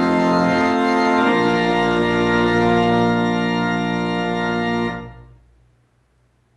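Organ playing sustained chords, shifting to a new chord a little over a second in, then ending on a held final chord that is released about five seconds in and dies away into quiet.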